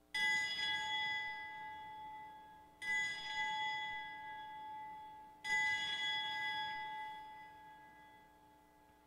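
Altar bell rung three times at the elevation of the chalice, just after the words of consecration. Each strike rings out and slowly fades before the next, about two and a half seconds apart.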